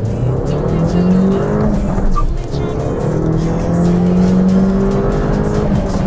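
Mercedes-Benz A 200's four-cylinder petrol engine accelerating hard, its pitch climbing with the revs. There is an upshift a little over two seconds in, where the pitch drops and starts climbing again, and another drop near the end.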